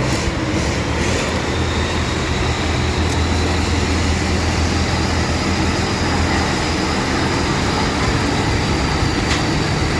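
Rice combine harvester's engine running steadily on a test run after servicing, with a faint high whine that slowly rises in pitch over the first several seconds as the machinery spins up.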